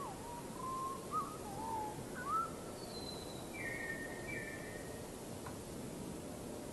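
Small birds calling: a run of short whistled notes that bend up and down in the first couple of seconds, then a few higher, thinner notes, over a steady background hiss.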